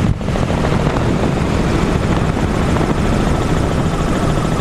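Helicopter running in flight, heard from inside its cabin: a steady loud noise of rotor and engine with an even low throb.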